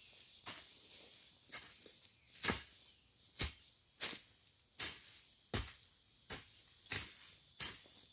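Hand hoe chopping into soil in a steady rhythm, about one stroke every three quarters of a second, each blow a sharp thud with a short scrape, as the ground is broken up for planting corn.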